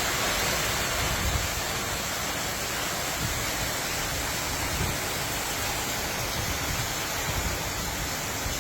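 Heavy rain pouring in a hurricane feeder band, a steady dense hiss, with gusts of wind buffeting the microphone in low rumbles every second or two.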